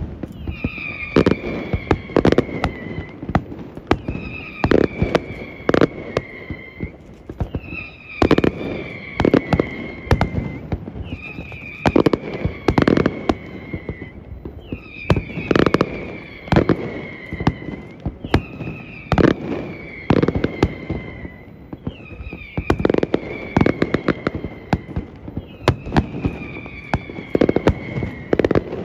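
Fireworks display: volleys go off in a steady sequence about every three and a half seconds. Each brings a whistle that falls in pitch, with a cluster of sharp bangs and crackling.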